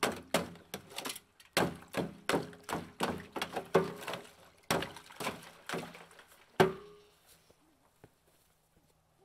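Ice being broken up in a frozen galvanized steel stock tank with a hand tool: a quick run of thunks and cracks, about three a second. The last and loudest hit lands about two-thirds of the way in with a short ring, and then the strikes stop.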